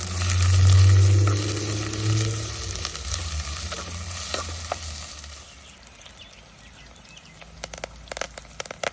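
Chopped onion frying in hot oil in a clay pot, sizzling steadily under a low hum. The sizzle dies down a little past halfway, and sharp crackles and pops follow near the end.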